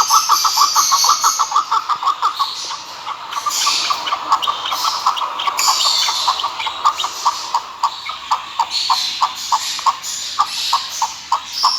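Chukar partridge calling: a long series of short clucking notes, fast at first, then slower and more irregular, over higher chirping.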